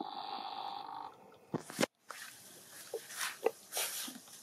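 A young macaque's drawn-out squeal lasting about a second, followed by a couple of sharp knocks and then a few short, faint chirps.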